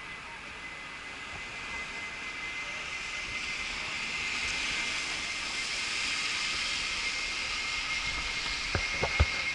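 Boeing 747 jet engines on the takeoff run: a hissing jet noise that builds steadily louder, with a steady high whine running through it. Two sharp knocks near the end.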